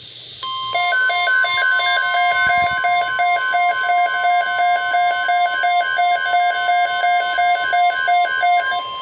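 NOAA Weather Radio warning alarm tone: a steady, loud high tone, with a weather-alert receiver's pulsing alarm beeping about three times a second over it. The alarm marks an incoming severe weather alert broadcast.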